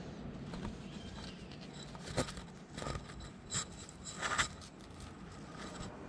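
Faint rustling with a few short light clicks and knocks spread through, from someone moving about and handling gear.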